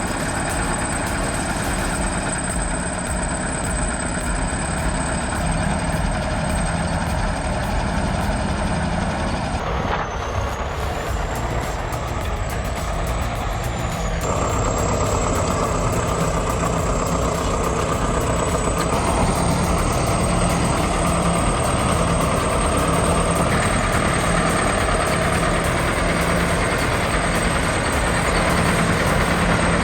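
Diesel engine of heavy earthmoving machinery running steadily. The sound changes abruptly about ten seconds and again about fourteen seconds in.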